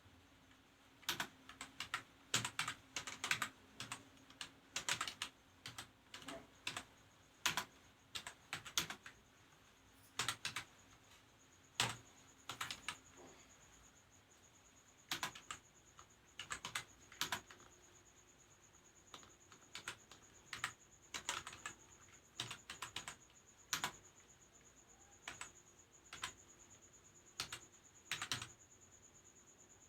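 Typing on a computer keyboard: rapid keystrokes in irregular bursts of clicks, broken by short pauses.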